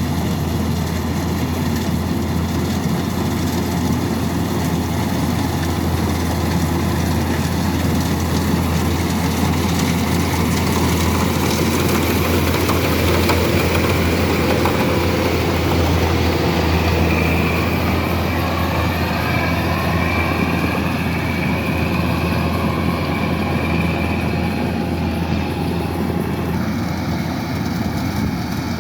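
Kubota DC-108X combine harvester's diesel engine and machinery running steadily with a constant low drone. Faint wavering whines come and go in the latter half.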